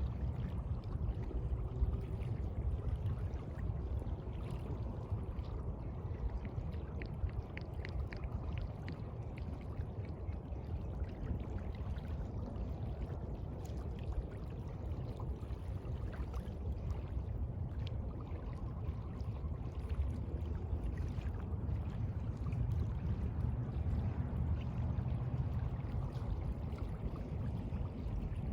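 Sea water lapping and sloshing in a steady low wash, with scattered small splashes and fizzing drips.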